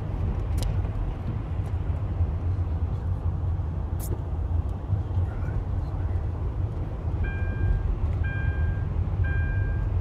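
Car driving on a wet, snowy road, heard from inside the cabin: a steady low rumble of engine and tyres. From about seven seconds in, a short electronic chime repeats about once a second.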